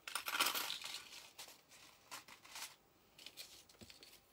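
Rustling handling noise, loudest for about the first second, then scattered faint clicks and small rattles as necklaces are handled on a table.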